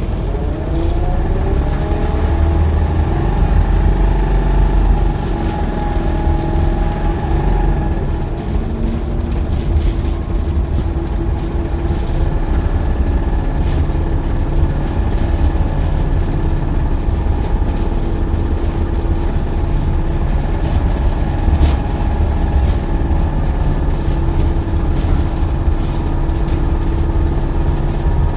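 Optare Solo bus heard from inside the cabin, its engine and drivetrain running with a heavy rumble and steady whining tones, the whine wavering up and down in the first several seconds. A horrible sound that the uploader takes for a sign the bus is ill.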